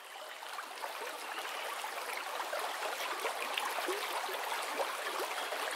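Water rushing and gurgling: a steady wash with many small bubbling chirps, swelling over the first second.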